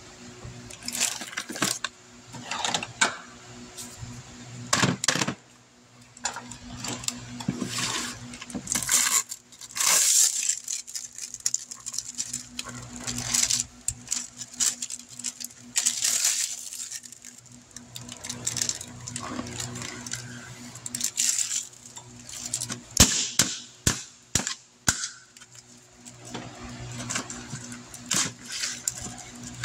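Irregular metallic clinks, clicks and rattles of small engine parts and tools being handled by hand around a 5.7 Hemi's bare block during lifter installation, over a faint steady hum.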